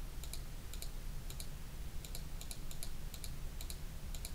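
Light, sharp clicks of a computer mouse, mostly in quick press-and-release pairs, coming irregularly about two or three times a second over a steady low hum.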